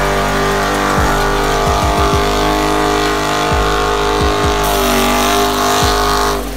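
Dodge Charger's V8 held at steady high revs in a burnout, its rear tyres spinning in place on the pavement.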